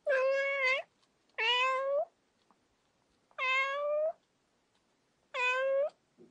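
A domestic cat meowing four times, each meow a little under a second long with short pauses between.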